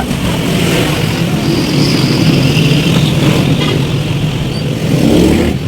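A motor vehicle's engine running steadily, a little louder near the end.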